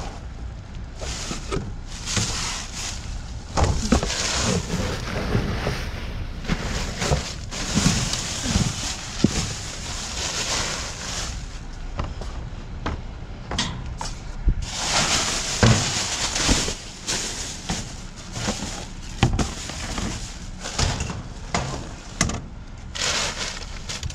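Clear plastic trash bags rustling and crinkling in bursts as they are rummaged through by hand in a dumpster, with scattered sharp knocks of boxes and hard items being moved.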